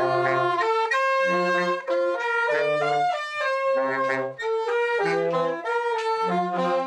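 A saxophone section playing a tune together in harmony: held chords above, with a lower part moving in short separate notes beneath.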